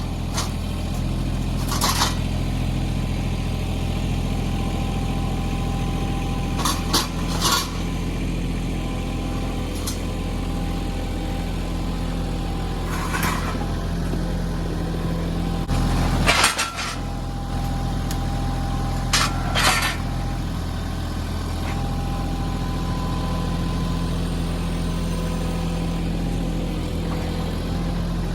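Mahindra 1626 compact tractor's three-cylinder diesel running steadily while working a backhoe, with sharp metallic clanks every few seconds. The engine note shifts briefly about two-thirds of the way through.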